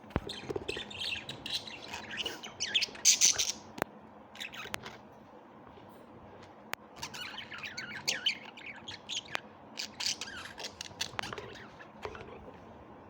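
Birds squawking and chirping in two main bouts of rapid, overlapping calls, with a quieter gap in the middle and a few sharp clicks between the calls.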